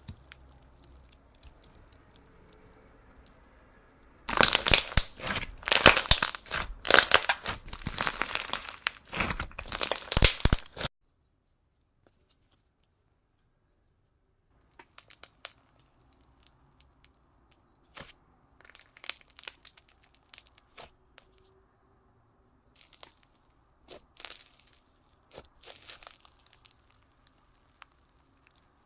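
Slime being squeezed and worked by hand, giving a loud run of dense crackling that lasts several seconds and stops abruptly. After a short pause come sparse, softer crackles and clicks as the slime is handled again.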